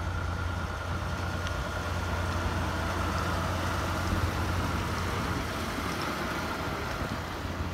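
Diesel engine of a Volvo VHD tri-axle dump truck running as the truck drives slowly past, a steady low hum with a higher whine above it. It grows loudest around the middle as the truck comes closest, then eases off near the end.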